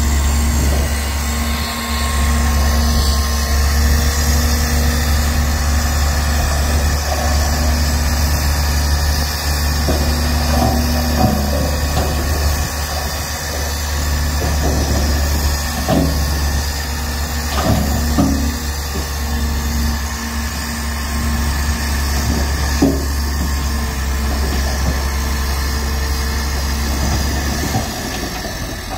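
Heavy diesel earthmoving machinery running steadily at a low drone, with a few scattered metallic knocks and clunks. The engine sound eases off slightly near the end.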